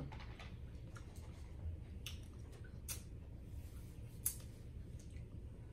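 Faint eating and food-handling sounds: a few scattered clicks and smacks, the sharpest about four seconds in, over a steady low hum.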